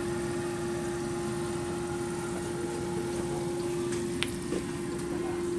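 Food sizzling and simmering in a cooking pan, under a steady electrical hum. There is a single small click about four seconds in.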